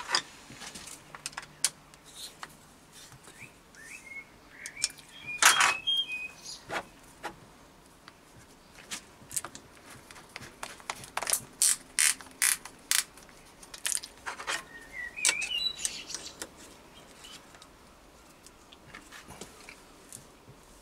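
Scattered clicks, taps and light rattles of hands working a power drill's keyless chuck, with a quick run of clicks in the middle. Short runs of bird chirps come through twice in the background.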